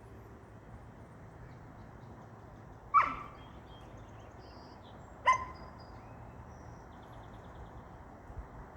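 A puppy gives two short, high-pitched barks, a little over two seconds apart.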